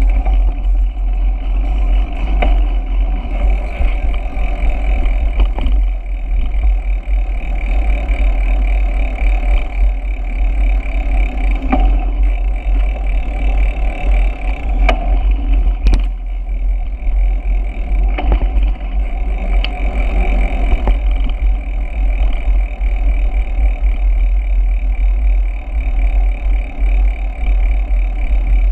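Steady wind buffeting and road rumble on the microphone of a camera riding on a moving bicycle, with a few sharp knocks from bumps in the road.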